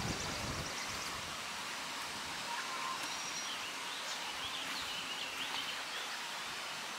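Outdoor ambience: a steady hiss of open-air background noise, with a brief low rumble right at the start and birds chirping several times through the middle.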